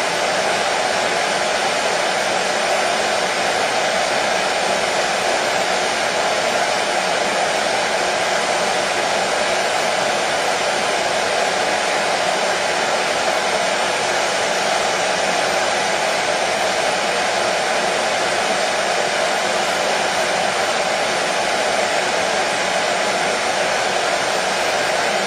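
Hair dryer running steadily: an even, unbroken rush of blowing air with a faint motor hum, played as soothing white noise for colicky babies.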